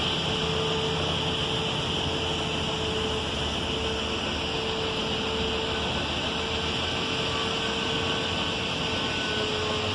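Heavy machinery running steadily: a low drone with a continuous whine that breaks off briefly a few times.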